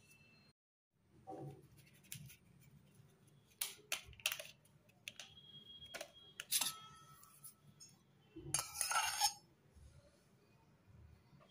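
Light clinks and taps of kitchen utensils against a bowl, scattered and irregular, with a short scratchy rustle late on.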